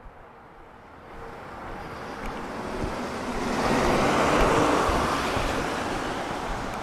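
A car passing on a wet road, its tyres hissing on the rain-soaked pavement: the noise swells over a few seconds, peaks a little past the middle, then fades slightly.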